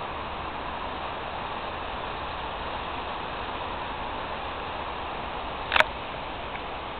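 Steady outdoor hiss, with one short sharp pop almost six seconds in.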